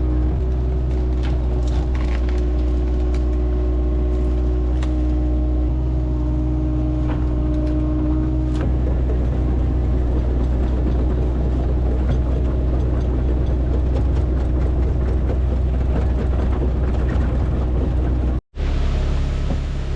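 Excavator's diesel engine running steadily, with scattered clicks and cracks over it. A humming tone in the sound stops about eight seconds in, and the sound cuts out for a moment near the end.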